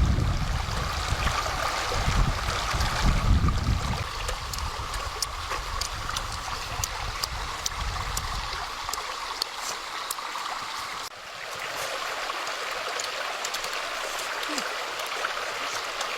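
Running water flowing steadily, with a low rumble over the first nine seconds or so. The sound changes abruptly about eleven seconds in.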